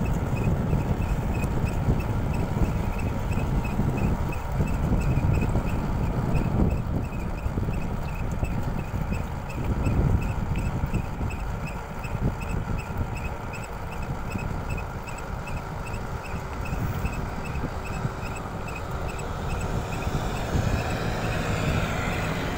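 Royal Enfield Meteor 350's front disc brake giving a short, high chirp that repeats about two to three times a second while the bike is ridden, over wind and engine noise. The owner traces the noise to the front brake pads, which the dealer has cleaned and is now replacing.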